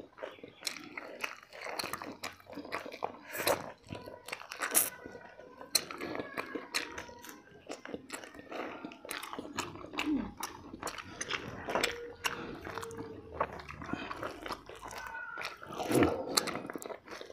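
A person eating close to the microphone: biting and chewing food, with a dense run of small irregular clicks and smacks.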